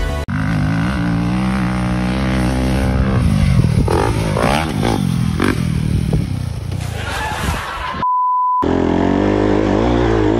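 Dirt bike engines revving, their pitch rising and falling sharply several times. About eight seconds in, the engine sound gives way to a short steady beep, then another dirt bike engine picks up, revving.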